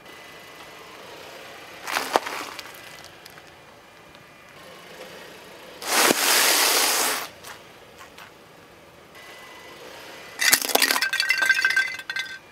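A car tyre crushing objects on asphalt one after another: a short crackle about two seconds in as a foil-wrapped chocolate bar is flattened, a loud crunching for about a second as a bag of cornflakes bursts under the wheel, then near the end a sharp crack and clinking crackle as a brittle yellow object shatters into pieces.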